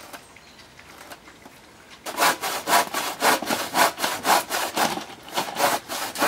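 Hand saw cutting across a 6 by 4 centimetre wooden timber. The sawing starts about two seconds in, in quick, even strokes at about three a second.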